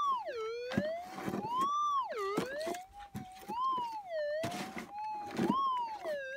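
Minelab GPZ 7000 metal detector's target audio: a continuous tone that glides up and down in pitch, rising and falling every second or two as the coil sweeps over a target about 8 inches down. A few short knocks and scrapes sound under the tone. The signal is broad and tricky to pinpoint.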